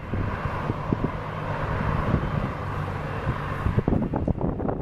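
Cessna Citation Excel's twin Pratt & Whitney Canada PW545 turbofan engines running steadily at low taxi power as the jet rolls slowly past. Wind buffets the microphone throughout, heavier near the end.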